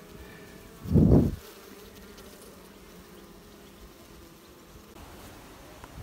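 Honeybees of an opened hive colony buzzing in a steady low hum, with a short low rumble about a second in.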